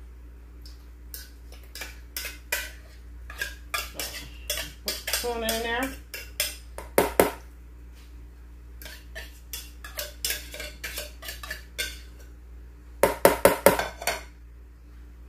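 A fork scraping and tapping against a metal tuna can, knocking tuna out into a glass bowl of macaroni: a string of clinks and scrapes, with a quick run of taps near the end.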